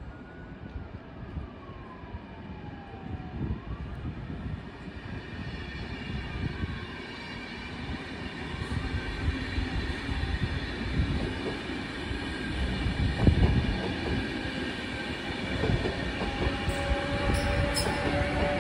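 Train of DSB double-deck coaches with a class EB electric locomotive rolling past: a rumble of wheels on rail with scattered clacks, growing louder as the train goes by, and high steady whining tones that build up after the first few seconds.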